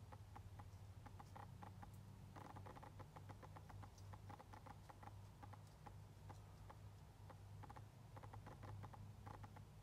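Faint clicking and ticking of a Nikon 600mm f/4 VR lens's autofocus motor, coming in irregular runs of rapid clicks as the autofocus hunts in very low light. A steady low hum sits underneath.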